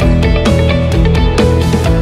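Background instrumental music with guitar and a steady beat.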